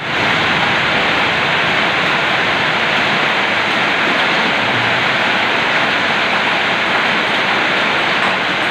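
A loud, steady rushing noise: an even hiss that does not change and has no breaks.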